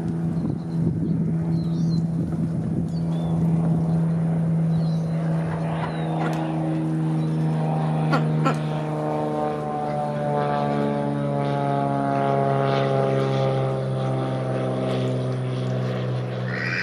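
Engine drone of a propeller airplane passing overhead, steady and loud, its pitch slowly falling in the second half. Small birds chirp faintly in the first few seconds.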